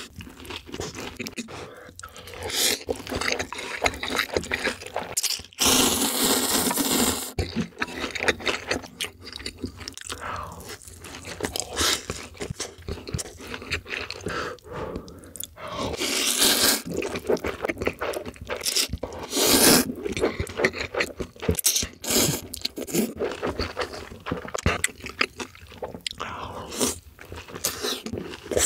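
Close-miked eating: crunchy bites and chewing of fried dumplings, with longer rushes of noise as spicy ramen noodles are slurped, the longest about six seconds in and again around sixteen seconds.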